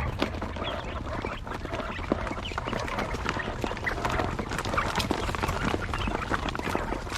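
Farmed quail calling and chirping in a flock, many short calls overlapping, with many short clicks and taps among them.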